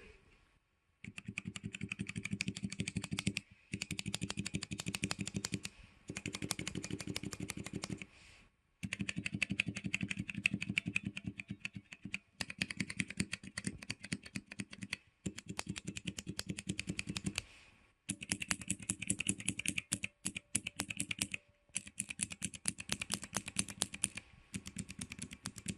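Cherry MX mechanical key switches (linear, tactile and clicky types) on a nine-key switch tester, fitted with keycaps and rubber O-rings, pressed rapidly key by key. The result is a series of runs of fast key clacking, each two to three seconds long, with short pauses between switches.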